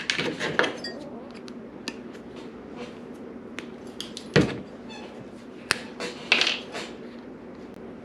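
Small plastic clicks and knocks of epoxy bottles and shot cups being handled and set down on a workbench, with one louder thump about halfway through, over a faint steady hum.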